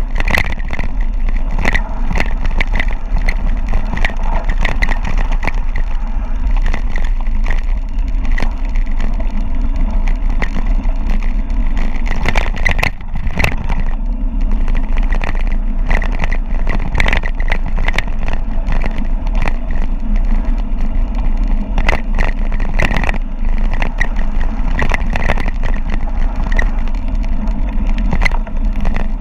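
Wind rushing over the microphone on a fast mountain-bike descent, with steady rattling and clicking from the bike over rough ground.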